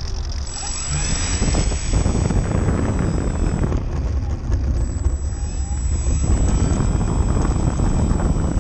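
E-flite Valiant 1.3m RC plane's electric brushless motor and propeller whining, the pitch rising and falling with the throttle as the plane taxis on the runway. Heavy wind rumble on the onboard camera's microphone.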